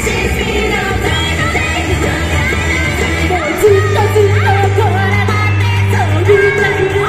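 Japanese idol pop song performed live: the group members sing into microphones over a loud, upbeat backing track through the PA.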